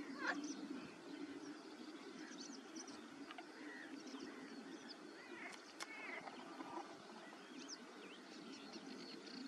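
Wetland birds calling: scattered short chirps and whistles from several birds over a steady low drone, with one louder harsh call right at the start.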